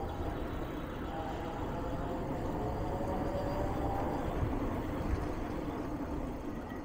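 Electric bike with a 48V 1000W rear hub motor conversion riding along a smooth tarmac street: steady wind and road rumble, with a faint wavering whine through the middle.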